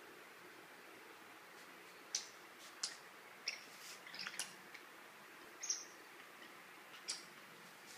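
Short, sharp, high-pitched clicks and squeaks, about eight of them at irregular intervals, from a Papillon puppy playing with a feathered cat wand toy on a tiled floor.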